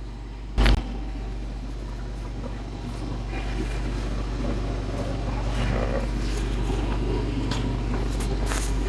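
Chiropractic flexion-distraction table running with a steady low mechanical hum that grows slightly louder, with one sharp click about half a second in.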